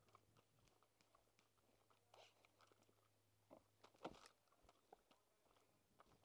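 Near silence with faint, scattered crunches and clicks, a small cluster of louder ones about four seconds in.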